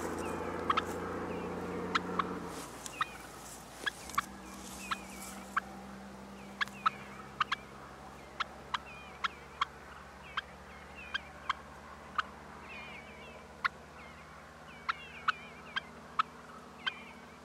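Wild turkeys clucking: a long string of short, sharp single clucks at uneven spacing, roughly one a second.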